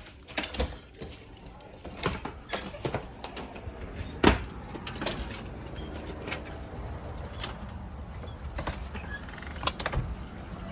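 Scattered clicks and knocks, the loudest a single sharp knock about four seconds in, over a low steady rumble.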